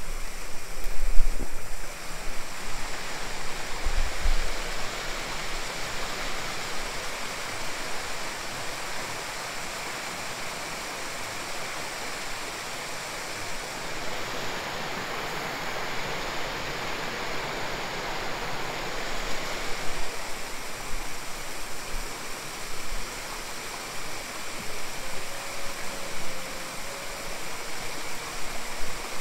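Steady rush of water pouring over rocks in a shallow channel. There are a couple of low thumps near the start.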